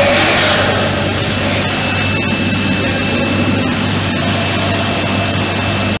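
Automatic rolling-drum bottle washing machine running: a steady mechanical hum under an even hiss, with a faint high whine joining about two seconds in.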